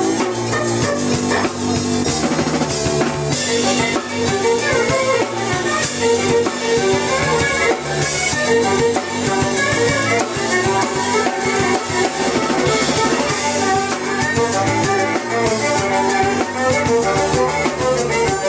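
Live electronic rock band playing: a drum kit pounding out a steady beat under violin and keyboard.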